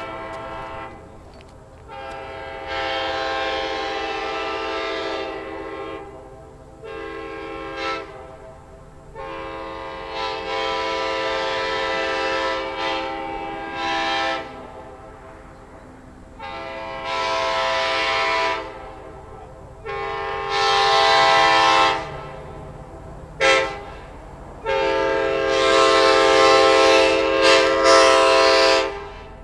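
Early-1990s Nathan K5LA five-chime locomotive air horn sounding a chord in a series of short and long blasts, the longest about four seconds near the end.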